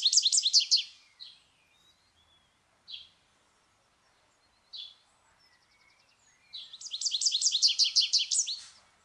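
Small songbird singing, given as a goldfinch coming to its nest: a fast trill of high, evenly repeated chirps that fades out about a second in, three single chirps a couple of seconds apart, then another fast trill near the end.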